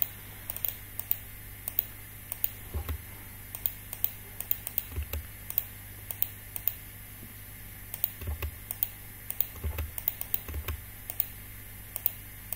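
Irregular clicking of a computer keyboard and mouse, in ones and short runs, with a few soft low thumps among them.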